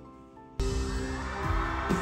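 Live concert music recorded from the audience: soft, sustained grand piano notes, then about half a second in a sudden switch to loud, full music that carries on.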